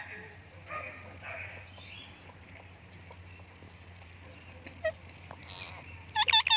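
A parrot gives a brief burst of loud, hooked squawks near the end. Under it, a fast, steady, high-pitched pulsing chirp and a low hum run throughout.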